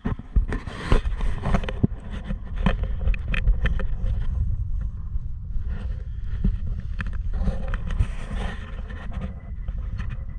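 Strong wind buffeting the microphone as a steady low rumble, with a run of knocks and scrapes in the first few seconds.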